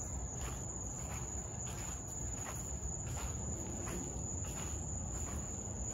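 Night insects, crickets, trilling: a steady high-pitched trill with a higher pulsing chirp about twice a second.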